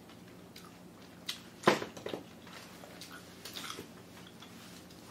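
Close-up wet chewing and mouth smacking of steamed bullet squid, with a few sharp clicks, the loudest about a second and a half in.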